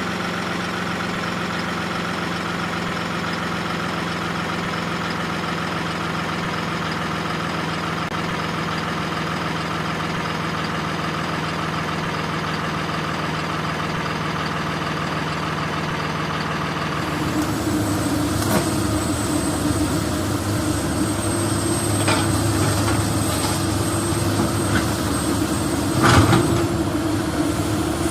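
Heavy vehicle engine idling steadily. About two-thirds of the way through it gives way to a different engine running, with a thin high whine and a few sharp knocks.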